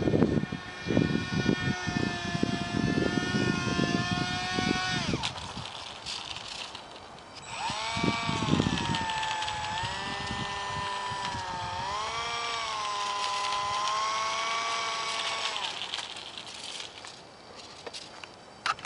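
Ultra-micro RC jet's small electric motor whining at a steady high pitch, with bursts of low rumble; the motor is cut about five seconds in as the jet comes down. About two seconds later it spins up again, wavering in pitch as the jet moves along the road surface, and stops a few seconds before the end.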